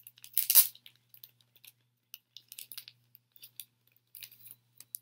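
Clear plastic sleeve crinkling and paper rustling as a small zine is handled and opened. A louder rustle comes about half a second in, followed by scattered soft crinkles.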